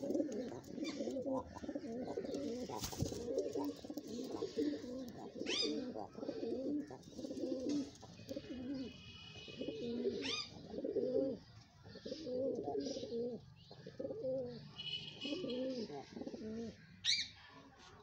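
Pigeons cooing in a string of repeated rolling phrases, one after another. A few short, high rising chirps cut in over the cooing, about five, ten and seventeen seconds in.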